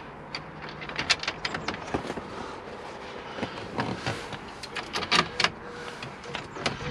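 Irregular small plastic clicks and knocks as a plastic stereo fascia trim panel is handled and seated in a car dashboard, with its screws being set in place. The sharpest clicks come about a second in and again around five seconds in.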